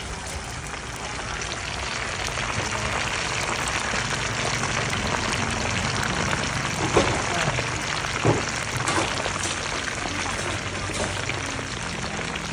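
Pork slices deep-frying in a pan of hot oil: a steady, dense sizzle. Two sharp clicks stand out about seven and eight seconds in.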